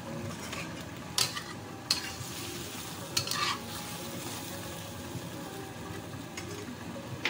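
Chicken feet sizzling as they are stir-fried in a wok, with a metal spatula scraping and knocking against the wok a few times in the first half.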